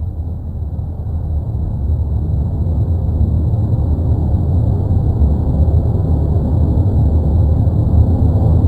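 Deep, steady rumble of the Cumbre Vieja volcano erupting on La Palma, growing somewhat louder over the first few seconds.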